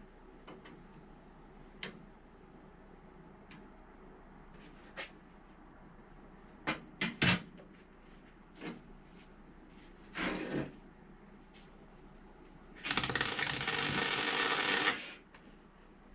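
Workshop handling noises: small clicks and knocks of metal parts and tools being picked up and set down. Near the end, a small electric motor, such as a drill's, runs loudly for about two seconds and stops.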